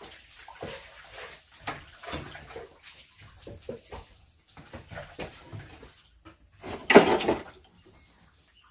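Dishes being washed by hand at a sink fed by a hose: water splashing and dishes clinking in irregular bursts. One louder, longer burst comes about seven seconds in.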